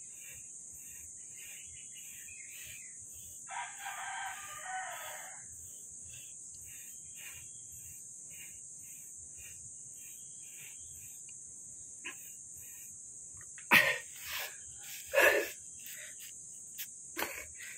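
A rooster crows once, about four seconds in, over a steady high hiss. Near the end come two loud, heavy exhalations from a man straining out of a long forearm plank.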